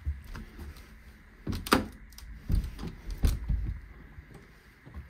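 An interior wooden door with a glass panel being handled and opened: a few sharp clicks and knocks from its latch and handle, with some low thuds.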